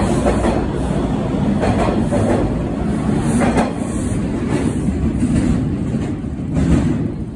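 TTC T1 subway train pulling out of the station and running off into the tunnel, its wheels clacking over the rail joints. The noise drops away sharply near the end as the train leaves.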